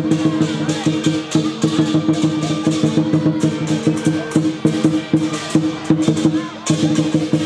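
Lion dance percussion band playing: a large drum beaten in a fast, dense rhythm with crashing cymbals over a steady ringing gong.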